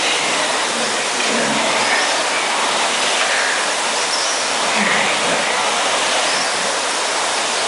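Steady rushing whoosh of several indoor rowing machines' fan flywheels spinning as people row on them.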